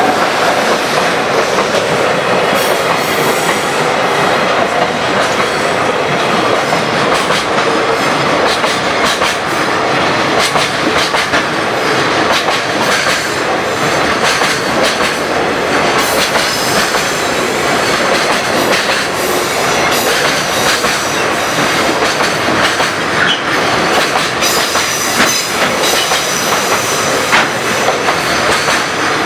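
A JR freight train rolling past, loud and unbroken, its wagon wheels clacking over the rail joints.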